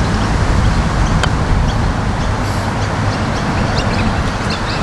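A steady low rumble of wind on the microphone. About a second in, a light click of a putter striking a golf ball. Small birds chirp faintly in the second half.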